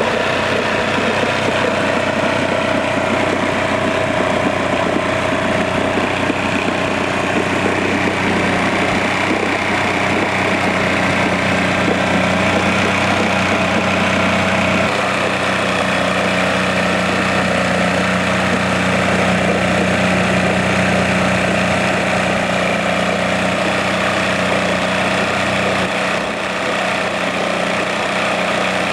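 Johnson 35 hp three-cylinder two-stroke outboard motor idling steadily with its leg in a test tank of water. The engine note shifts slightly about halfway through.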